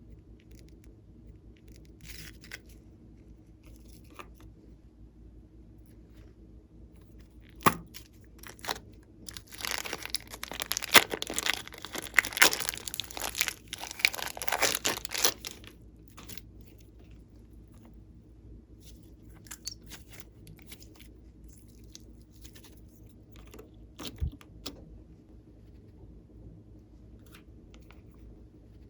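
Crackling, crinkling handling noises, densest for about six seconds in the middle, with scattered sharp clicks before and after.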